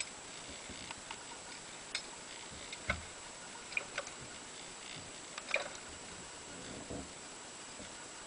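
Light clicks and knocks at uneven intervals from a diver's vintage twin-cylinder scuba rig and footsteps as he walks, over a steady faint hiss; the sharpest knocks come about three seconds in and again a little past five seconds.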